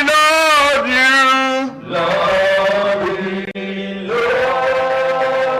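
Worship singing: a voice chanting in long held notes that waver in pitch, over a steady low accompanying tone.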